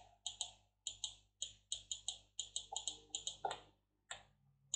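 Quick, light clicking of computer input buttons, about four clicks a second, many in close pairs, thinning out near the end.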